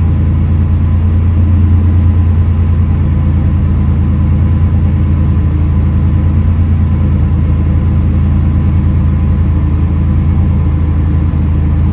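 1991 GMC Syclone's turbocharged 4.3-litre V6 idling steadily just after a vacuum leak was repaired, running much better.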